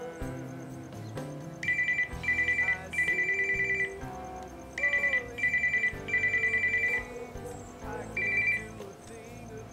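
Telephone ringing: an electronic trilling ring in repeated short bursts that come in groups, over soft background music.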